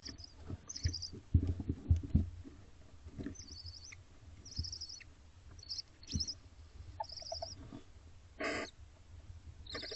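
Barn owls in a nest box giving short, high, rasping chittering calls again and again, with low thumps and scuffs of movement inside the box. About eight and a half seconds in there is one longer harsh rasp.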